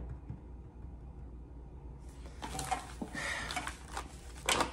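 Tarot cards being gathered up and slid together across a tabletop: papery rustling with light ticks that start about two seconds in and are loudest near the end.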